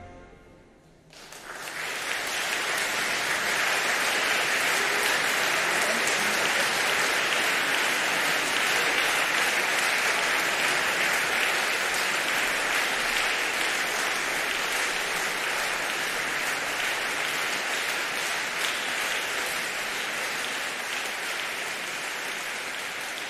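Audience applauding after a live concert, starting about a second in as the last notes of the music die away, then slowly thinning.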